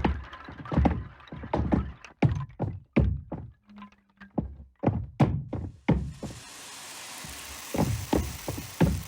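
A string of irregular dull knocks and thuds, a few each second, with a steady hiss coming in about six seconds in.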